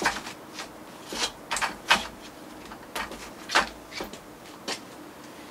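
Irregular clicks and knocks of a circular saw being handled on a rough oak board as its blade depth is reset, a dozen or so sharp knocks with the saw's motor not running.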